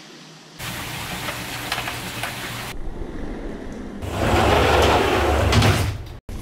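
Large glass sliding patio doors rolling along their tracks in a few short cuts, a rolling rumble; the loudest run starts about four seconds in and lasts about two seconds.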